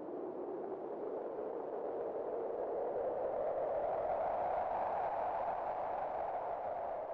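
Wind blowing as a hollow, whistling rush that rises slightly in pitch and swells about halfway through, then eases a little.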